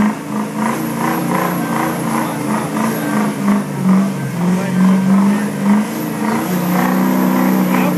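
Ford F-250 Power Stroke diesel engine revving under load as the truck, stuck and bellied out in mud, tries to drive free, its pitch rising and falling in uneven surges.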